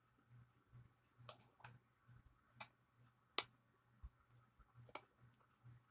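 A few faint, sharp, irregular clicks of small metal clock parts being handled and fitted into an alarm clock movement, about five in all, the clearest a little past the middle.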